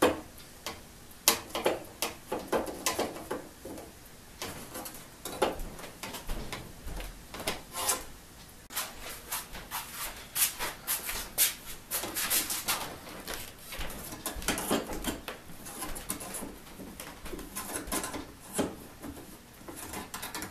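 Irregular clicks, knocks and scrapes of hand tools on a large crosscut saw blade on a workbench: a plier-type saw set is worked on the teeth, then a quick-grip bar clamp is fitted to the blade. The clicks come thickest a little before halfway through.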